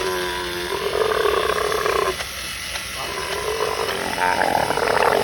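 Battery-operated walking toy playing an electronic animal sound effect through its small speaker, in two long, buzzy stretches with a short break between them.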